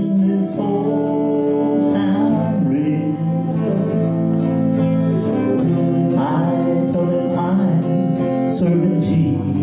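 Live praise-and-worship music: a man singing over electric guitar and saxophone, with a steady beat.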